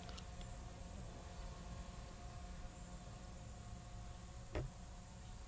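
Faint background sound: a thin, high-pitched buzz that comes and goes in short stretches over a low, steady hum and rumble, with a soft knock about four and a half seconds in.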